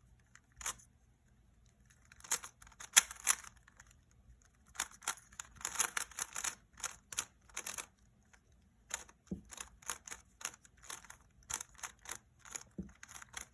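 Rubik's Cube being twisted by hand: quick plastic clicks and rattling as its layers are turned, in bursts with short pauses between them.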